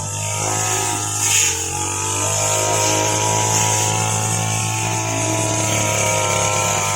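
Brush cutter's small engine running steadily at high speed, with a brief louder moment a little over a second in.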